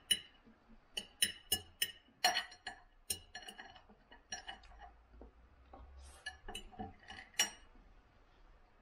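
Knife and fork clinking and scraping against a plate while cutting rye bread with fried egg: a quick run of sharp clinks in the first three seconds, fewer in the middle, and a last loud clink near the end.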